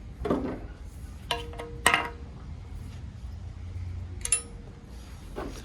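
A few sharp metallic clinks, about a second and a half in, just before two seconds in, and again past four seconds, the first two leaving a brief ringing tone: metal parts or tools knocking against each other during work on a steel bumper.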